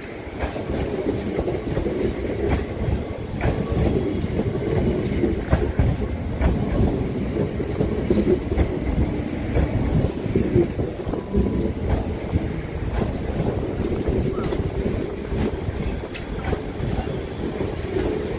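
South Western Railway Class 450 Desiro electric multiple unit passing alongside the platform: a steady rumble with the wheels clicking irregularly over rail joints.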